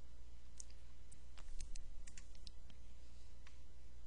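About a dozen light, irregular clicks, most of them bunched in the middle of the stretch, over a steady low hum.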